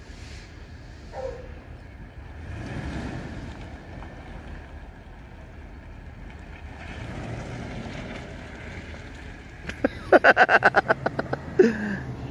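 An SUV driving slowly past, a low rumble of engine and tyres that swells twice. Near the end comes a loud, quick rattle of about a dozen sharp pulses, followed by a short falling tone.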